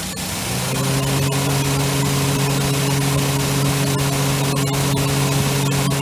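Toyota bB's engine bay with the engine running: a click at the start, then, from about half a second in, a steady hum with a few held tones over a loud hiss.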